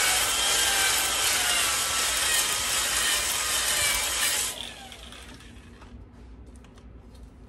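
Corded electric drill spinning a ball hone inside an oiled cast-iron cylinder sleeve of a Mercury 150 2.5 outboard block, the finish hone that smooths the crosshatch, while the hone is stroked up and down the bore. The drill stops about four and a half seconds in, followed by a few faint clicks.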